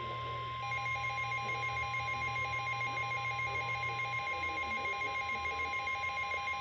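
NOAA Weather Radio's steady 1050 Hz warning alarm tone, the signal that a warning message is about to follow. About a second in, rapidly pulsing alert beeps from the Midland WR-300 weather radio join the tone.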